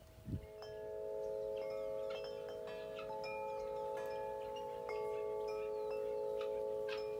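Large metal tubular wind chime ringing: a knock about a third of a second in, then several deep tones that hang on and overlap, with further tubes struck now and then so new notes join in.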